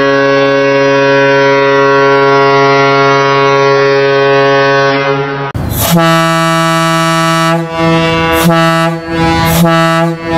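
Two warship horns in turn. First a long, steady, low-pitched blast, cut off abruptly about five and a half seconds in. Then a higher-pitched horn sounds in several blasts broken by brief dips.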